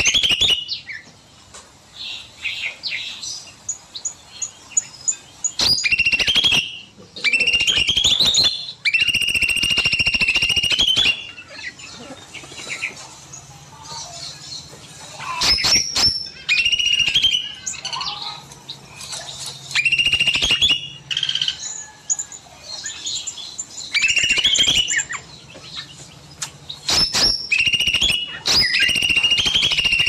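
Songbirds in an aviary, led by a cucak mini, singing loudly: a phrase repeated about eight times, each a sharp start and then a held, trilling note of a second or two, with softer chirps and twitters in between.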